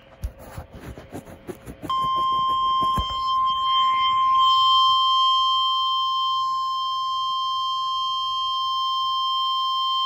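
NOAA Weather Radio 1050 Hz warning alarm tone coming from a handheld weather radio's small speaker: one steady, unwavering beep-like tone that starts about two seconds in and holds. Before it come a couple of seconds of handling rustle and clicks.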